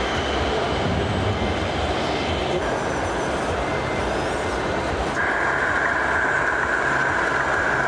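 Radio-controlled model trucks and vehicles running: a steady low mechanical drone over a general noise wash, with a steady high whine that comes in about five seconds in.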